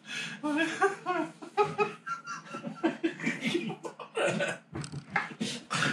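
Men laughing hard, in short repeated bursts of voiced laughter.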